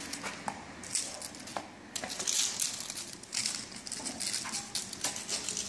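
Irregular scuffing and scraping of a dog's paws on pavement as it leaps and pounces in play, in quick uneven bursts.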